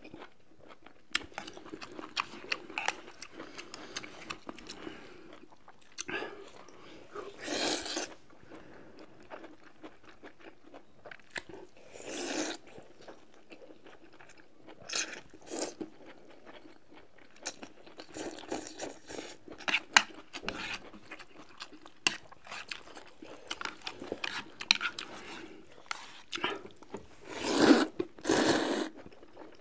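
Close-up eating sounds: noodles slurped in several loud sucks, with steady chewing and crunching of food between them.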